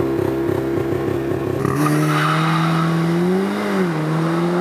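2019 Cupra Ateca's 300 hp two-litre turbocharged four-cylinder engine pulling the car along under throttle. The note holds fairly steady, then rises briefly and drops back about three and a half seconds in.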